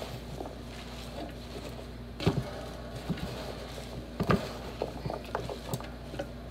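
Hands rustling fresh spinach and chopped vegetables into a large speckled enamel pot, with two louder knocks against the pot, about two and four seconds in.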